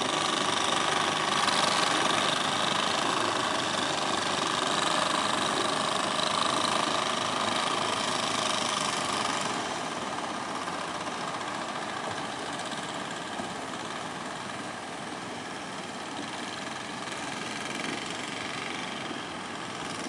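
Engine of a motorised outrigger fishing boat running steadily, over the wash of breaking surf.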